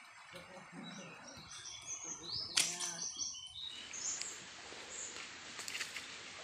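Birds chirping with a short shout among them, then, about three and a half seconds in, a steady rush of river water running over shallow rapids takes over.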